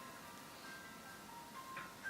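Faint background music: a slow line of single high notes, held one after another.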